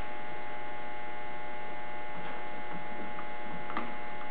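Steady electrical hum made of several constant tones, with a few faint light clicks of metal parts being handled, the last about four seconds in.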